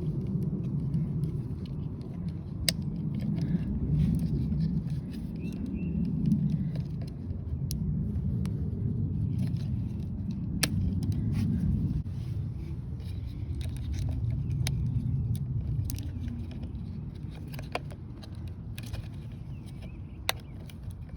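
Scattered small clicks and taps of hands working a LiftMaster 877MAX wireless keypad while its battery is swapped, over a low rumble that swells and fades.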